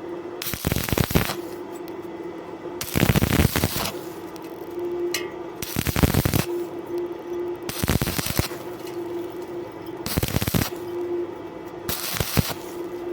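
Stick (electrode) arc welding on thin metal, the arc crackling in short bursts of about half a second to a second, struck and broken six times at roughly two-and-a-half-second intervals, as in stitch welding; a steady hum carries on between the bursts.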